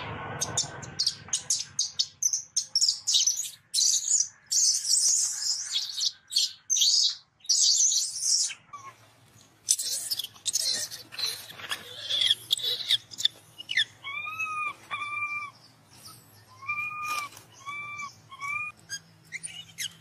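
Animal calls: rapid high chirps and squeaks in the first half, then a string of short, arched, whistle-like calls repeated several times near the end.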